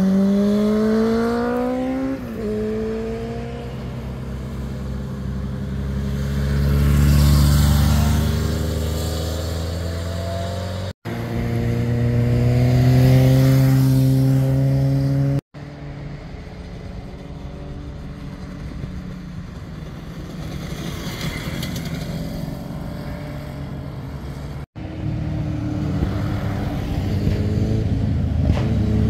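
Motorcycle engines accelerating out of a hairpin bend and passing close by, one machine after another with abrupt cuts between them. Engine pitch climbs, drops at an upshift about two seconds in, then swells and fades as each bike goes by.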